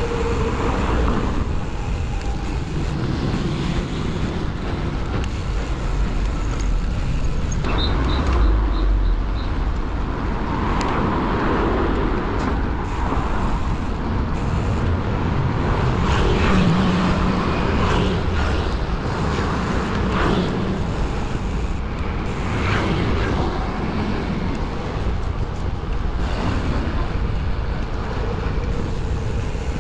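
Street traffic heard from a moving bicycle: steady noise of cars and motor scooters, with wind rumbling on the microphone. Four quick high beeps sound about eight seconds in.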